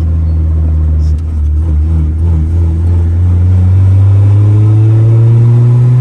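Honda Civic engine heard from inside the car, holding a steady low drone, then rising steadily in pitch from about halfway through as the car accelerates in gear.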